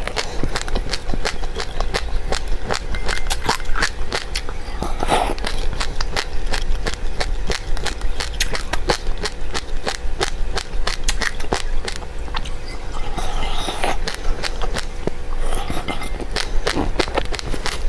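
Close-up crunching of dry seeds being chewed: a rapid, dense run of crisp cracks and crackles.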